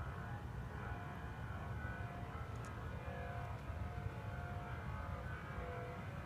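Steady low rumble with faint, wavering high tones drifting above it, the droning sound reported as a strange sound in the sky that started after a boom.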